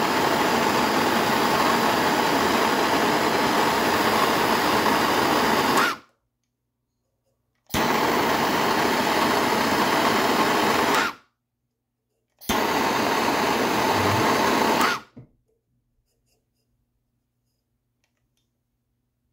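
Turbotorch TX503 propane torch flame hissing steadily while heating an aluminum joint for brazing. It runs in three stretches of several seconds each, the longest first, each starting and stopping abruptly.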